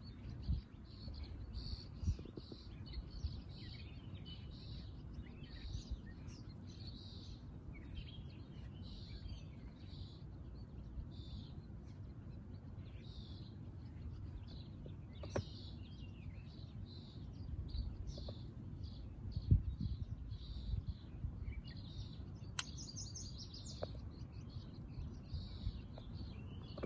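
Songbirds chirping, a quick run of short calls repeated steadily, over a low rumble with a few brief knocks and clicks.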